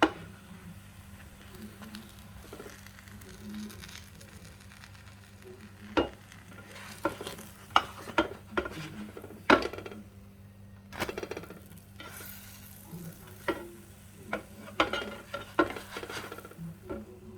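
Pancake batter sizzling in a frying pan, with a spatula scraping and tapping against the pan several times in the middle and latter part, over a steady low hum.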